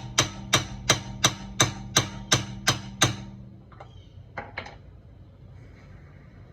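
Hammer blows on a steel socket stuck on a wheel lug nut, about three ringing strikes a second, stopping about three seconds in. A few light metallic clicks follow.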